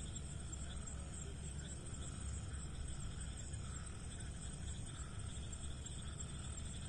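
Crickets trilling steadily at a high pitch, over a low, steady rumble.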